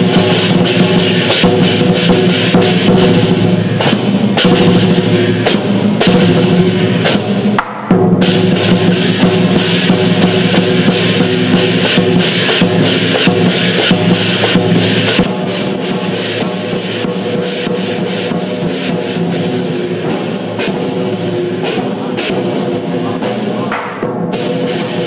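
Chinese lion dance percussion: rapid, continuous drum beats with clashing cymbals ringing over them. There is a brief break about eight seconds in, and the playing gets somewhat quieter about halfway through.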